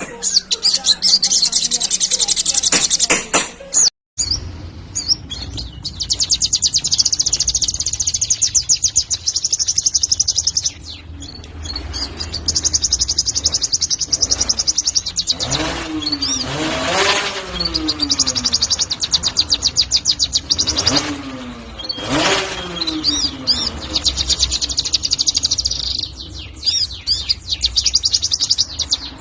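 Sunbird (sogon) singing long runs of a very rapid, high-pitched trilling chatter, broken by short pauses, over a low steady hum. Two louder swooping sounds cut in about halfway through.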